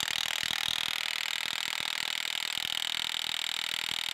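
Milwaukee M18 FUEL 3/4-inch cordless impact wrench hammering steadily in fast, even blows on a large nut that is already bottomed out. The nut barely turns, if at all.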